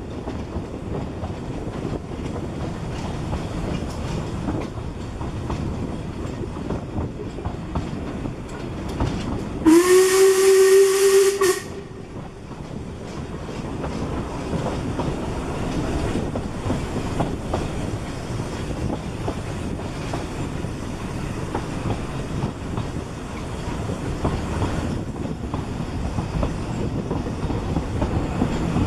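Narrow-gauge steam train running, with its carriages rumbling and clattering over the rail joints, heard from a carriage window. About ten seconds in, the locomotive No. 7 Tom Rolt sounds its steam whistle once for about two seconds; the pitch rises briefly as it starts, then holds.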